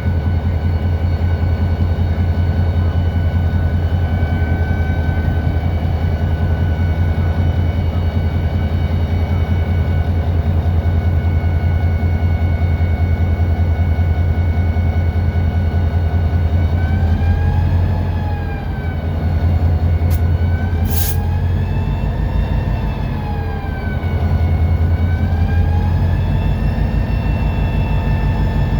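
EMD SD40-2 locomotive's 16-cylinder two-stroke diesel heard from inside the cab, running steadily at first, then its speed dropping and rising again a few times in the second half as the throttle is changed while moving a cut of cars. A brief high hiss about twenty seconds in.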